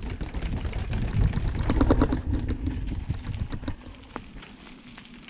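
Mountain bike rolling down concrete steps: a rough rumble with rattles and knocks as the wheels drop off the step edges, loudest about two seconds in. It settles to a quieter rolling sound once the bike is on the dirt trail, from about four seconds in.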